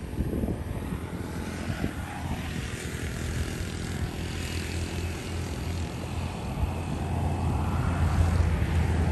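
A steady low engine drone under a hiss, growing a little louder near the end.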